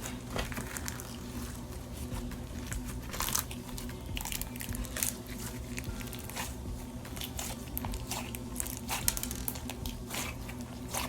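Clear slime full of wax beads being squished and kneaded by hand, giving irregular crunchy clicks and crackles.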